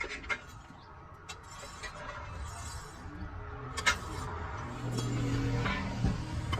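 Scattered metallic clinks and knocks, then a steady low motor hum that comes in about five seconds in and grows louder.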